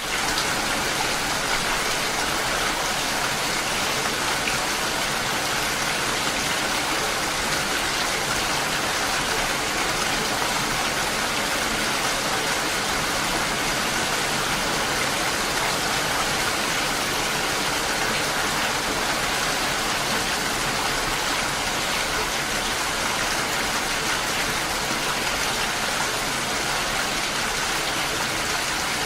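Steady, heavy rain falling: an even, continuous hiss of many drops without pauses.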